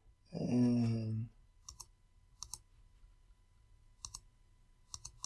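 Computer mouse clicking in quick pairs, press and release, four or five times, on an otherwise quiet recording. A short hum from a voice, held at one pitch, comes about half a second in.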